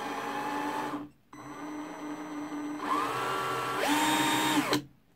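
Einhell TE-CD 18/40 cordless drill-driver running free with a twist drill bit in its chuck: it whines for about a second, stops briefly, then runs again as the trigger is squeezed further, its whine rising in two steps before it stops near the end. The bit is being spun without load to check whether the chuck runs true.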